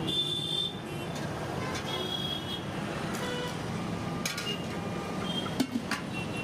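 Steady traffic noise from a nearby road, with a few sharp metallic clinks of steel serving utensils against steel pots about four seconds in and again near the end.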